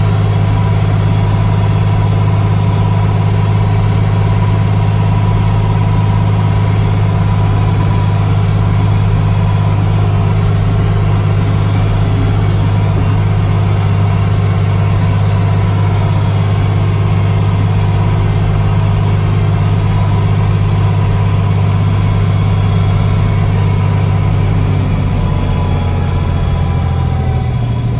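John Deere loader tractor's engine running steadily while pulling a trailer stacked with round bales, heard from inside the cab as a loud, even low hum. Near the end the engine note drops slightly as it slows.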